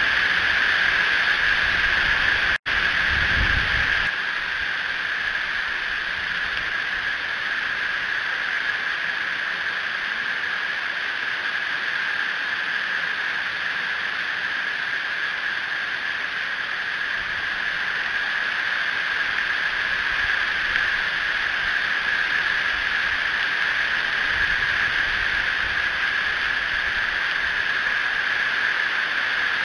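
Steady, even hiss of rain at an outdoor nest microphone. About two and a half seconds in, the sound drops out for an instant, followed by a brief low rumble.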